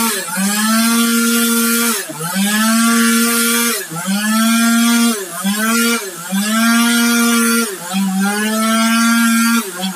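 Two-stroke chainsaw running at high revs as it cuts into the trunk of a dead agarwood tree. Its pitch sags and recovers about every one to two seconds as the chain bites into the wood and eases off.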